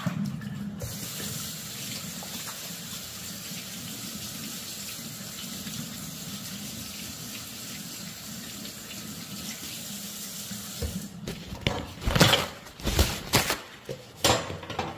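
Kitchen sink faucet running steadily as hands are washed under it; the water stops about 11 seconds in. Then a few loud crinkling rustles as a paper towel is pulled off and used to dry the hands.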